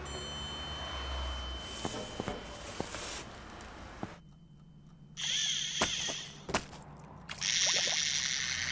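Cartoon sound effects with no music: scattered sharp clicks and a faint hiss, then two bursts of high hissing noise, one a little past the middle and a longer one near the end.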